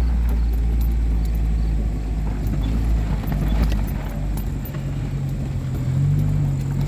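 Vehicle engine running at a low, steady speed, its note lifting slightly about six seconds in, with a few light rattles.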